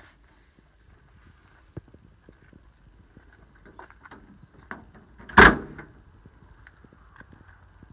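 A door of a 1959 VW split-window bus shut once with a loud metal thunk about five and a half seconds in, amid faint clicks and knocks of handling.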